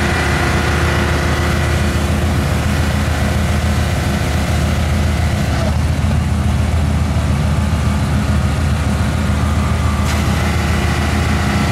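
Engine running at a steady speed, a constant low drone with no change in pitch.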